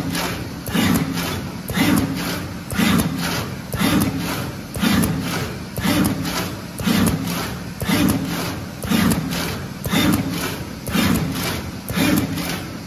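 Automatic tin-tie bag pasting machine running, cycling about once a second with a dull thud each cycle and a run of quick mechanical clicks in between.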